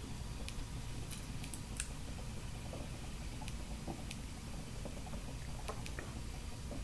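Faint steady hiss of a small HHO torch's needle flame burning rough diamonds, with scattered faint ticks.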